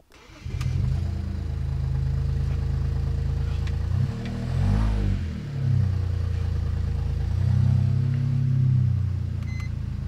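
BMW 335i's N54 twin-turbo inline-six starting and running, revved up and back down twice, about four seconds in and again near the end. It is misfiring on cylinders 4, 5 and 6, the fault the replaced DME MOSFETs did not cure.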